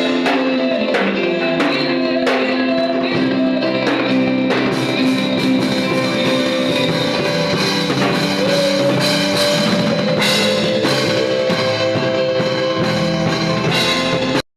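Music with a drum beat and sustained instrumental notes, possibly with singing, which stops abruptly at the very end.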